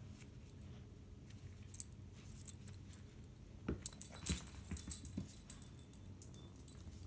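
Small dog's collar tags jingling as it runs and leaps after a mini tennis ball. The jingling comes mostly in the second half, with a few dull thumps among it.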